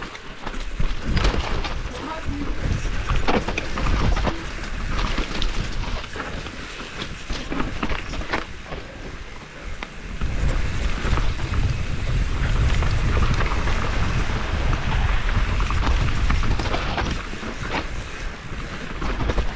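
A 2019 YT Capra carbon mountain bike riding down a trail: tyres on dirt, with frequent knocks and rattles from the bike over rough ground and wind rumbling on the GoPro's microphone. The wind rumble gets heavier about halfway through.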